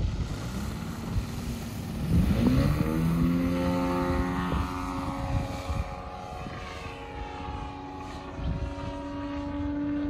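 Desert Aircraft DA-200 four-cylinder two-stroke boxer engine of a 40%-scale RC Extra 330 LX, revving up sharply about two seconds in as the throttle is opened for takeoff. It then runs steadily at high power as the plane climbs away.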